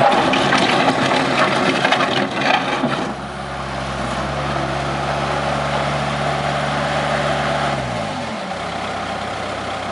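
Skid steer engine running steadily, louder and clattering for the first three seconds, then winding down and stopping about eight seconds in: the engine is shut off.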